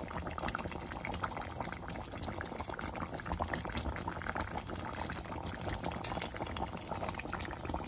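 Chicken rezala curry simmering in an open pan, its gravy bubbling steadily with many small pops.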